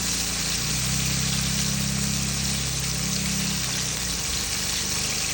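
Chicken frying in hot oil in a pan, a continuous steady sizzle, with a low steady hum underneath that fades in and out.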